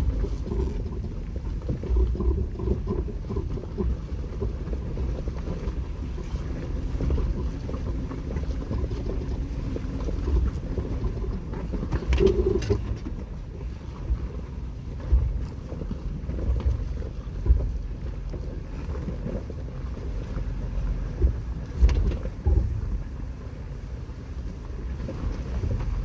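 Jeep Wrangler crawling down a rocky off-road trail: a steady low engine and drivetrain rumble, with a few sharp knocks over the rocks.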